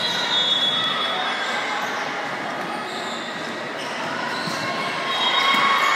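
Reverberant gymnasium din during volleyball play: crowd chatter with high sneaker squeaks on the hardwood floor, clustered near the start and again near the end.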